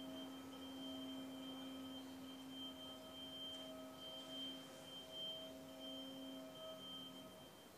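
A few steady held tones at different pitches sounding together, faint, fading out near the end.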